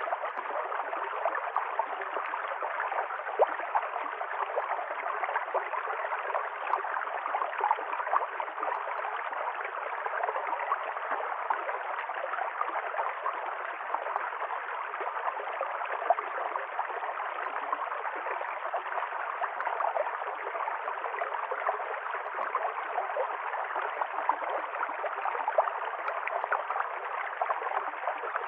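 River stream water flowing and gurgling steadily, a continuous rushing with small irregular splashes.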